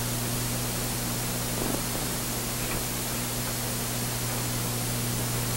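Steady hiss with a low, even hum, the background noise of an old film soundtrack, with no other sound standing out.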